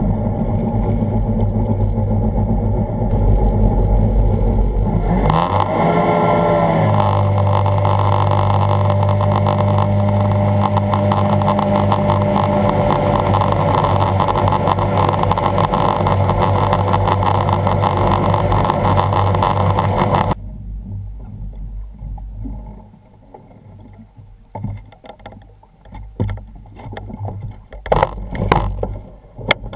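Personal watercraft engine running slowly, then revving up about five seconds in and running at speed with water rushing past the hull. About two-thirds of the way through the engine sound stops abruptly, leaving quiet water noise and a few scattered knocks.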